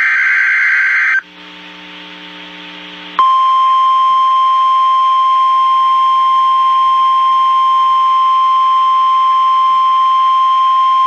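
NOAA Weather Radio emergency alert: a short burst of SAME digital header tones, a pause with faint hiss and hum, then the steady 1050 Hz warning alarm tone starting about three seconds in. The alarm tone signals that a severe thunderstorm warning is about to be read.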